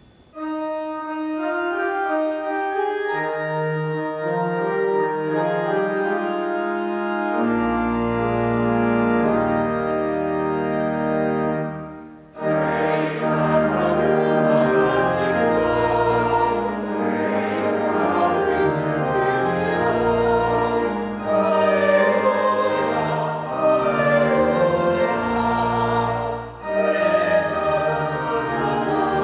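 Church organ playing slow, held chords, with deep pedal notes coming in about seven seconds in; about twelve seconds in, voices with vibrato start singing a hymn over the organ.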